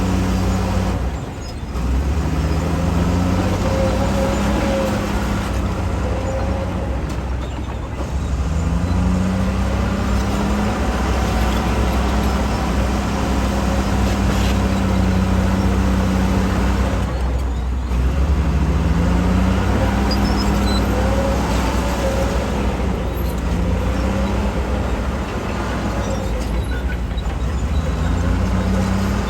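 Heavy earthmoving machine's engine running hard under load, its pitch dropping and then rising again several times as it revs back up.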